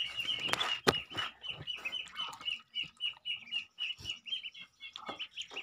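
Ducklings peeping: a steady run of short, high, same-pitched peeps, several a second, with a few sharp clicks in between, the loudest about a second in.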